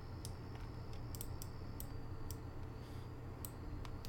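Scattered faint clicks of a computer mouse and keyboard being worked, over a steady low hum.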